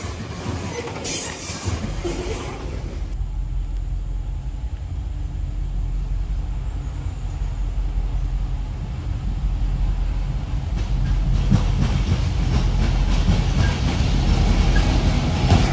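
Coal train running on the rails: a steady low rumble that grows louder, with clattering in the first few seconds.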